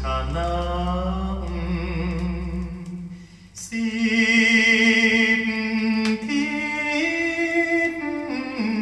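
The closing bars of a Thai song played from a vinyl record through a tube amplifier and Klipsch La Scala horn speakers: held notes with vibrato that drop away briefly about three seconds in, then swell back louder.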